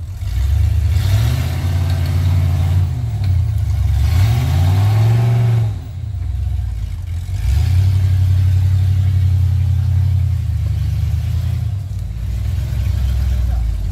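8.4-litre big-block V8 of an off-road buggy revving hard in repeated surges while it climbs out of a deep mud rut, its pitch rising and falling. The engine drops off briefly about six seconds in, then pulls steadily again.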